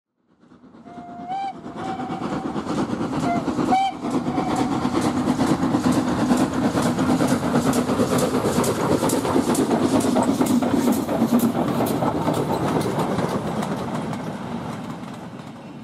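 Steam locomotive whistle sounding a few short toots in the first few seconds, then the locomotive and train running past with a steady rumble and a quick regular beat, fading out near the end.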